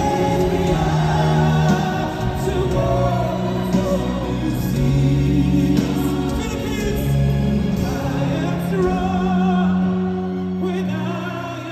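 Live pop ballad: a male vocal group singing long held notes over a full band, recorded from within an arena crowd.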